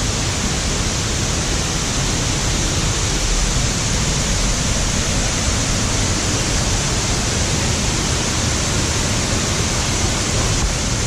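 Steady, loud rush of flowing water, as from a waterfall or fast stream, with no breaks.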